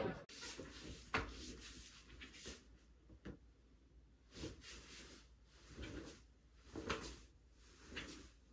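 Faint, irregular soft taps and clicks, roughly one a second, against a quiet background.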